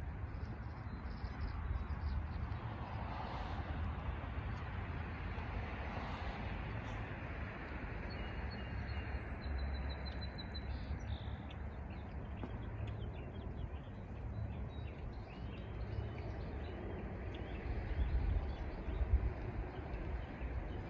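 Wind buffeting the microphone in an uneven low rumble over a steady outdoor hiss, with scattered faint bird chirps and a short high trill about nine seconds in.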